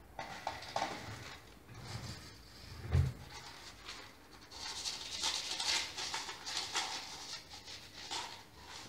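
Dry cat kibble rattling and rustling as it is poured out of a plastic tub, with a low thump about three seconds in as a bowl is set down on the tile floor. A few short cat calls come in the first second.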